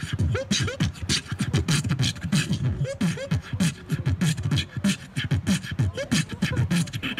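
Beatboxing into a handheld microphone, amplified through a portable PA speaker: a fast, unbroken rhythm of deep kick-drum thumps and sharp snare-like clicks made with the mouth.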